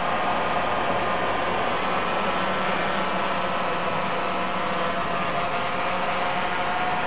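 Quadcopter drone hovering close overhead, its propellers giving a steady, even buzzing hum with a faint constant tone.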